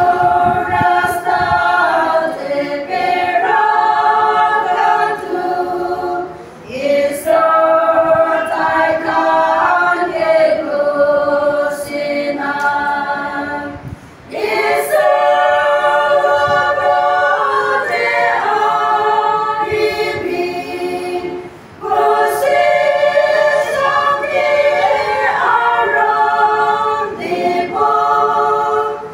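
Women's choir singing unaccompanied, in phrases of about seven seconds with short breath breaks between them.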